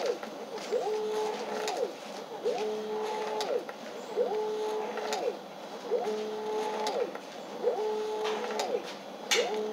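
A machine-like whine repeating about every 1.7 seconds. Each time it glides up, holds a steady pitch for most of a second and glides back down. Sharp clicks come in between.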